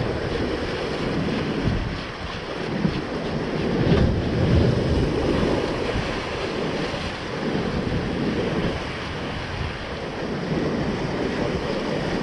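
Ocean waves surging and washing, with wind buffeting the microphone; the sound swells and eases, loudest about four seconds in.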